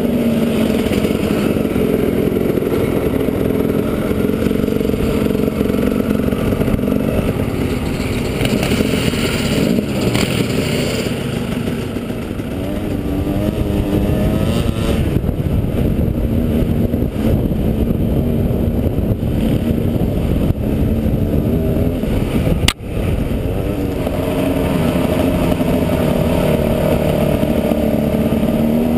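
KTM dirt bike engine running under way, revs rising and falling as the rider works the throttle and gears. About 23 seconds in there is a sharp click with a split-second dropout in the sound.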